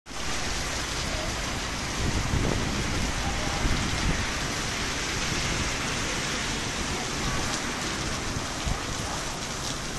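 Torrential rain pouring onto pavement and road, a dense, steady hiss. A few low rumbles swell up in the first half.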